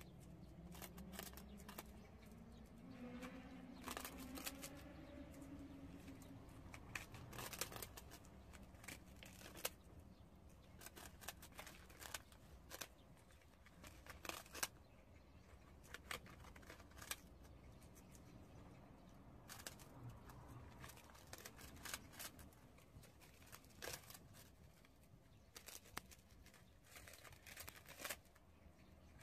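Prairie dogs gnawing on puffed rice cakes: an irregular run of small crisp crunches and nibbling clicks, with a few louder bites standing out. A faint wavering tone sounds in the first few seconds.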